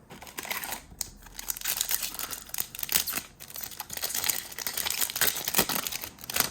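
A foil trading-card pack wrapper being torn open and crinkled by hand, a dense run of sharp crackling rustles throughout.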